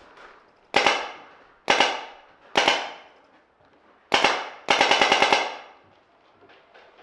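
Paintball marker firing close by: three single shots about a second apart, another a moment later, then a rapid string of about seven shots.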